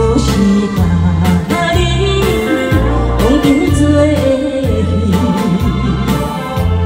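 Karaoke backing track with a steady repeating bass line and keyboard, and a singer's voice over it in the middle.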